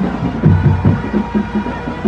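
Music with a steady, heavy bass beat.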